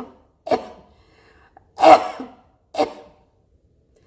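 A person coughing in a fit: three harsh coughs roughly a second apart, the middle one the loudest. Part of recurring coughing attacks.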